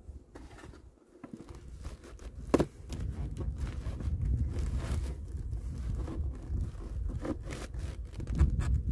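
Close rustling and scraping of a beekeeping suit and veil against the microphone as the wearer moves, with one sharp knock about two and a half seconds in. A fluctuating low rumble of wind on the microphone runs from then on.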